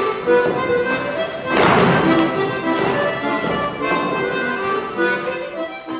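Accordion playing a lively folk dance tune, with dancers' shoes thumping and tapping on the studio floor and a louder rush of noise about a second and a half in.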